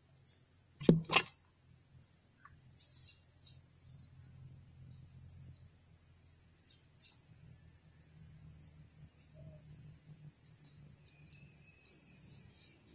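Small birds calling with many short falling chirps over a steady high drone. Two sharp knocks about a second in.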